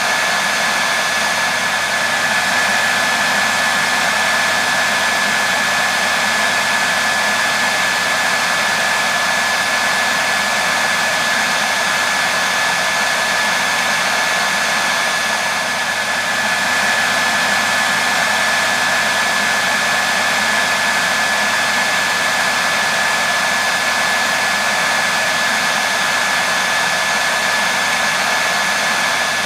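Hair dryer blowing steadily, an even rushing hiss with a thin steady whine of its motor over it.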